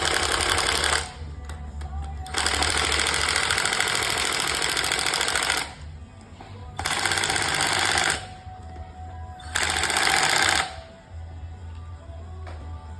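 Power drill run in four bursts of a few seconds or less, the longest about three seconds, driving fasteners back in during reassembly of the scooter. Radio music plays faintly underneath.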